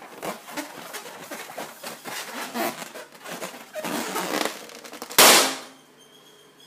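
Hands squeezing and rubbing an inflated rubber balloon, the rubber squeaking and creaking in irregular bursts, then the balloon bursts with a single loud pop about five seconds in.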